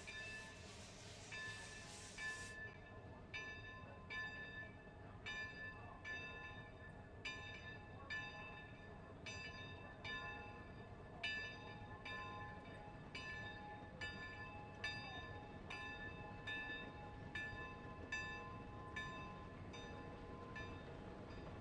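Steam locomotive's bell ringing steadily, a little more than one stroke a second, each stroke ringing on. A high hiss, likely steam, stops about two seconds in.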